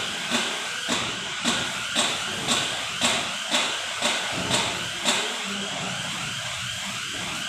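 A machine running with a steady whirring noise and sharp clicks about two a second; the clicks stop about five seconds in while the whirring goes on.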